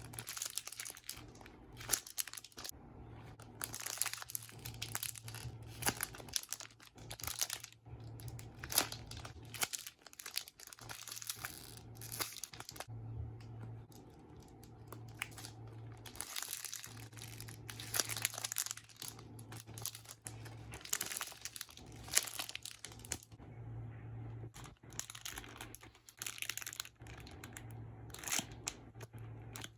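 Plastic packaging crinkling and rustling as squishy toys are handled: an irregular run of crackles with brief pauses, over a faint steady low hum.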